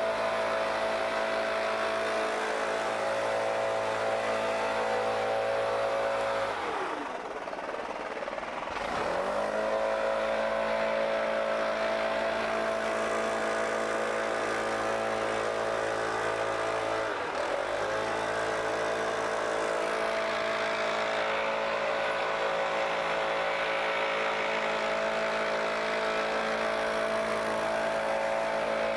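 STIHL BR 700 backpack leaf blower's two-stroke engine running at high throttle with a steady whine. About a third of the way in the throttle is let off: the pitch drops to a low idle for a couple of seconds, then rises back to full speed. Later it dips briefly once more before running on steadily.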